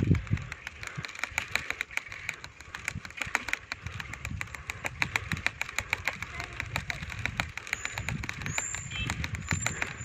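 Bicycle rattling as it rolls along a rough paved path: many sharp, irregular clicks and knocks, with wind rumbling on the microphone underneath.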